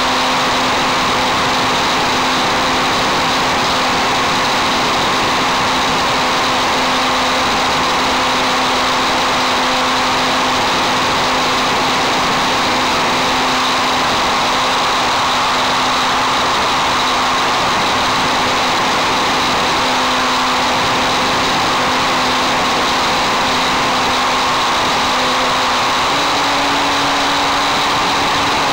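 RC model airplane's motor and propeller running steadily in flight, heard from a camera on the plane: a steady drone with a rush of wind noise. The drone steps up slightly in pitch near the end as the throttle is opened a little.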